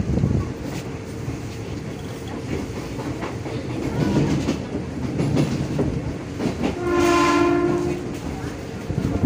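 Running noise of an electric commuter train car in motion, heard from inside the carriage as a steady low rumble. About seven seconds in, a train horn sounds once for just over a second.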